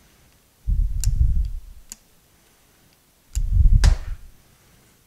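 Pump oil can and steel chuck jaws being handled on a workbench: a few sharp metallic clicks, the strongest near the end as the oil can is set down. Over them come dull, low thumps about a second long, about two and a half seconds apart.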